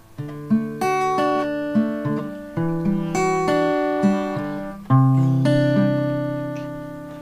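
Intro music: an acoustic guitar picking a short melodic phrase, ending on a chord about five seconds in that rings on and slowly fades.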